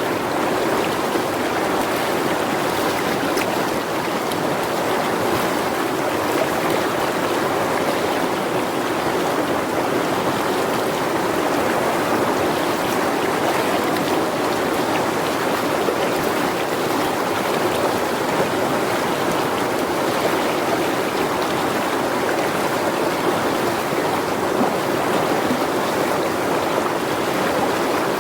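Forest river fed by rainy-season runoff, its water rushing steadily and evenly.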